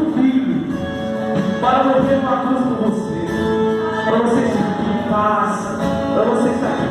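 Gospel worship song: several voices singing over instrumental accompaniment.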